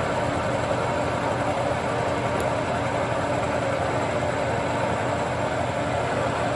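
Milling cutter on a horizontal spindle taking a steady cut along the edge of a steel block, a constant machining noise with the machine's drive running underneath.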